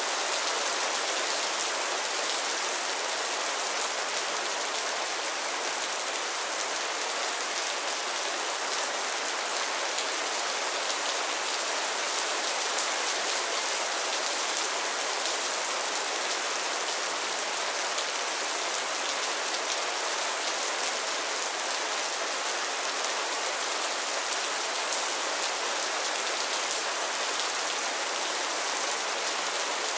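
Mild, steady rain falling on a roof and the ground: an even hiss dense with small drop ticks, unchanging throughout.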